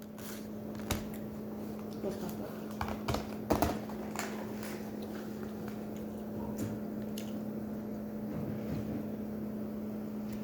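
Eating at a table: scattered clicks and taps of utensils and dishes with chewing, busiest in the first few seconds, over a steady low hum.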